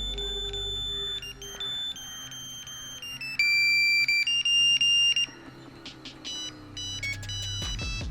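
Nokia 1100 mobile phone playing its monophonic ringtones: melodies of high, stepped beeping notes. A little past halfway one tune stops, and a quicker run of notes begins near the end.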